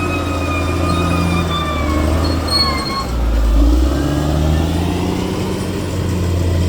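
Bulldozer's diesel engine running under load with a steady low drone, swelling deeper and louder about halfway through. Thin high whining tones slide downward in the first half.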